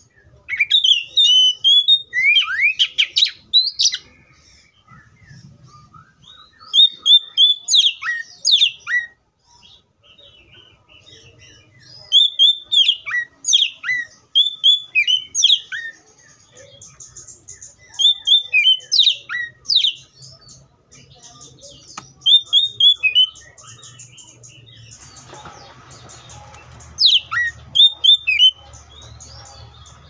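Oriental magpie-robin singing: about six bouts of loud, varied whistled phrases with quick falling notes and warbles, each separated by short pauses.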